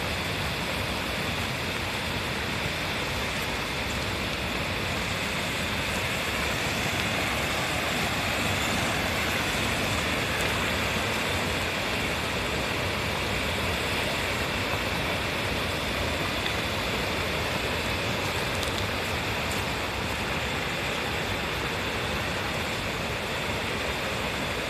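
Mountain stream rushing over rocks: a steady, even water noise with no change.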